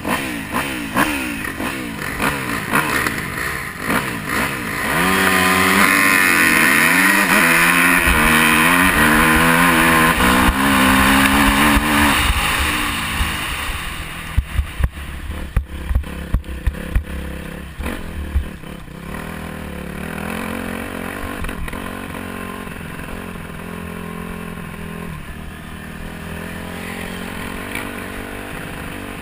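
Dirt bike engine ridden hard, its pitch climbing and dropping with throttle and gear changes, loudest at full throttle in the first half. About halfway through it eases off, a run of sharp knocks and clatter follows, and the engine then runs on more quietly at a steady lower speed.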